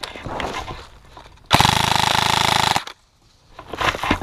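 Airsoft electric M4-style rifle firing one full-auto burst of just over a second, a fast, even mechanical rattle of shots, starting about halfway through.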